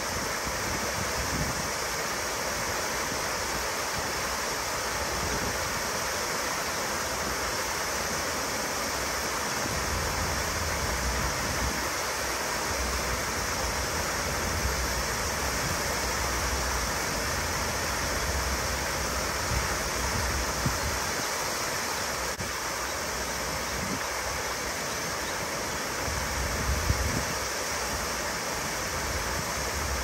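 Waterfall rushing and splashing steadily, with a deep rumble swelling now and then underneath.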